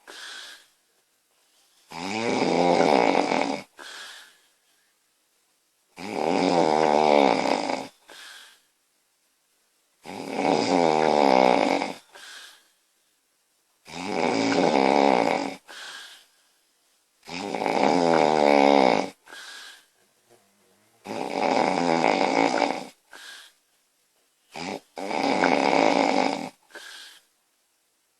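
A woman snoring loudly in a steady rhythm: seven long, rattling in-breath snores about every four seconds, each followed by a shorter, softer breath out, with near silence between breaths.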